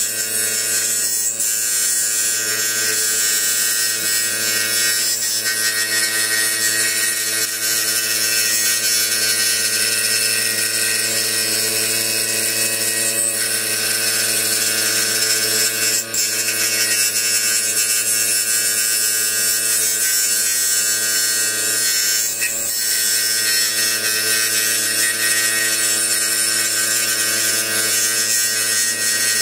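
Hegner scroll saw running steadily, its blade stroking rapidly up and down as it cuts a curved outline in a hardwood board. There is a constant motor hum under the hiss of the blade through the wood.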